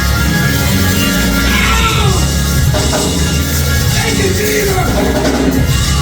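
Live church band music with drums, bass and guitar keeping a steady beat, and a voice rising over it now and then.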